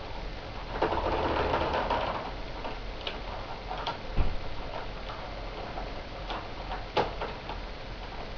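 Model train running on track, with irregular clicks from the wheels and track and a louder stretch about a second in.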